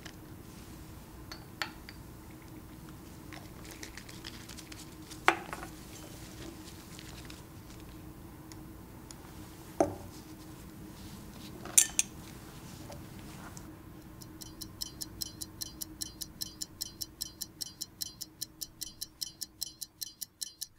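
A few sharp glass clinks as glassware touches a small glass beaker while sulfuric acid is added to sugar. About fourteen seconds in, a fast, even stopwatch ticking starts, about five ticks a second.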